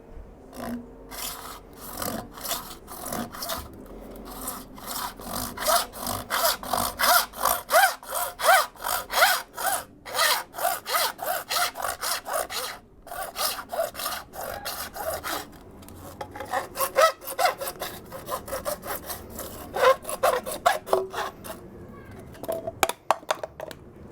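Hand saw cutting through PVC pipe in steady back-and-forth strokes, about two a second, slowing to a few scattered strokes near the end as the cut finishes.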